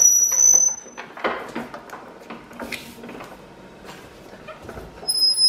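Paper guillotine cutter working on a brochure stack: a short, high, steady tone at the start and again about five seconds in, with knocks and clatter from the machine in between as the clamp comes down on the stack.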